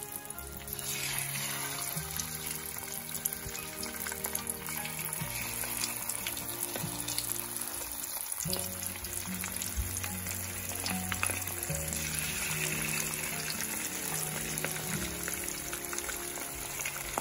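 Small masala-coated fish frying in hot oil in a nonstick pan: a steady crackling sizzle that grows louder about a second in. Background music plays underneath.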